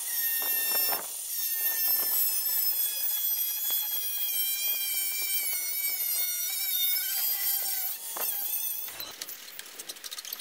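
Angle grinder cutting through a thin steel sheet a couple of millimetres thick: a loud high whine that sags a little in pitch while the disc bites. It stops about a second before the end, followed by a few light clicks.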